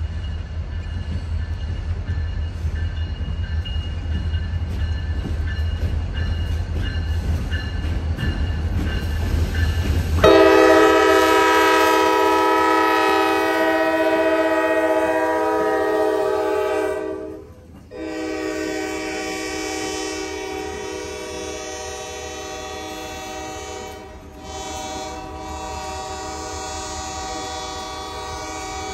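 Lake State Railway diesel freight locomotives rumbling low as they approach. About ten seconds in, the locomotive horn starts sounding in long blasts, broken twice by brief gaps, as the units pass and the freight cars follow.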